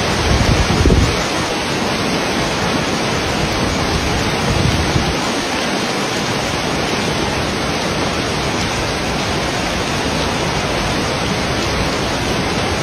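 Heavy rain and floodwater rushing down a street in a torrent: a loud, steady noise of water, with brief low rumbles about a second in and again near five seconds.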